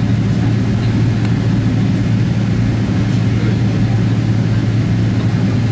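Steady low drone of aircraft and ground machinery on the apron around a Boeing 777 hitched to a pushback tug, with a strong even low hum throughout and no sudden sounds.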